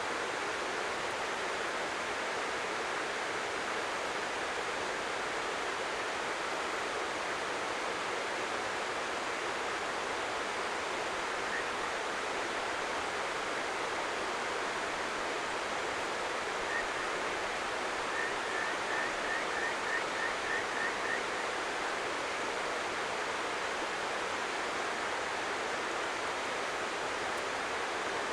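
Steady rush of flowing stream water. A little past the middle comes a quick run of about eight faint, short high chirps, with one or two single chirps before it.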